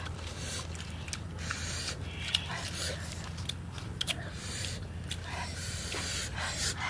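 Close-up eating sounds of fried catfish: crisp fish being pulled apart by hand and chewed, heard as scattered wet clicks, smacks and crackles.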